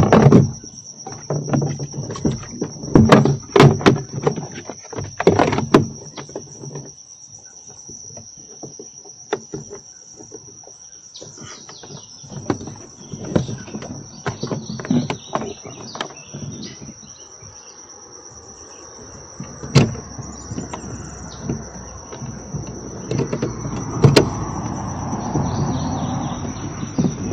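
Fishing gear knocking and rattling against a plastic kayak as it is handled, in several bunches of knocks with quieter stretches between, over a steady high-pitched insect trill.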